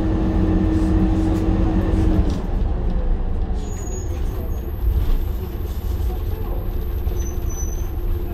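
Optare Solo single-deck bus heard from inside the passenger saloon: its diesel engine and drivetrain running under way, with a steady low rumble from the road. A steady hum in the engine note stops about two seconds in.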